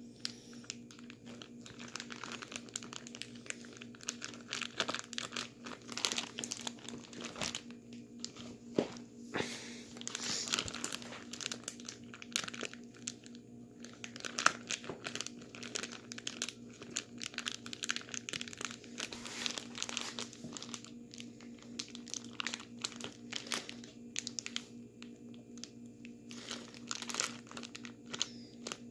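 Plastic bag crinkling and crunching in irregular bursts as it is shaken and squeezed with ice and salt around a sealed bag of drink, which turns the drink to slush. A steady low hum runs underneath.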